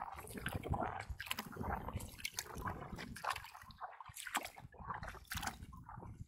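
Water lapping and sloshing against an inflatable kayak's hull, with irregular small splashes and drips.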